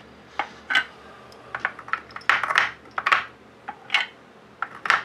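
Loaded brass rifle cartridges clinking as they are lifted out of a plastic loading block and set into the slots of a plastic MTM ammo box: irregular sharp clicks of brass against brass and plastic.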